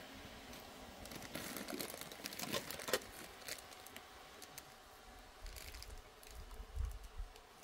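Light rustling and scattered small clicks of a cloth pouch and a small metal object being handled in the hands.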